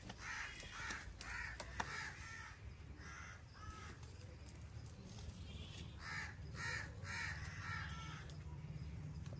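Crow cawing repeatedly in two runs of short harsh calls, the second run starting about six seconds in.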